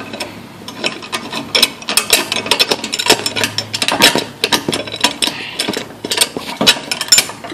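Irregular metallic clicks and knocks of a steel C clamp and hand tools being handled against a ride-on mower's steel deck.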